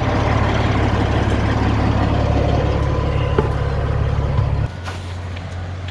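Heavy diesel truck engine running under load while the rig reverses, then dropping suddenly to a lower, quieter run about three-quarters of the way through as the throttle is let off.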